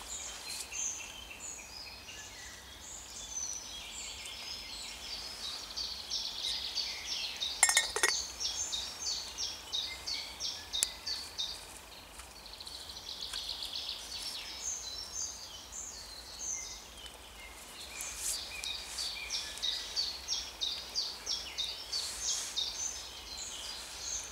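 Woodland birds singing, many short high notes and trills repeating throughout, with a single sharp knock about eight seconds in.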